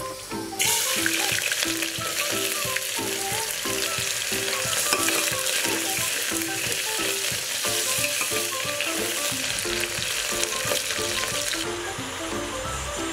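Sliced onions and whole spices sizzling in hot oil in a pressure cooker while a spoon stirs them. The sizzle starts suddenly about half a second in and cuts off near the end, with background music playing under it.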